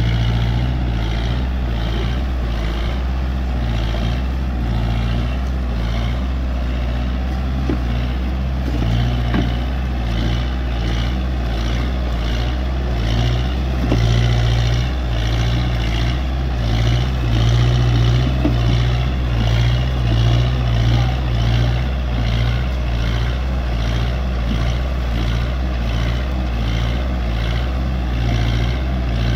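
Kubota tractor's diesel engine running steadily as the tractor works through deep wet mud. The engine drone grows louder for a few seconds around the middle as the tractor pulls through the mud.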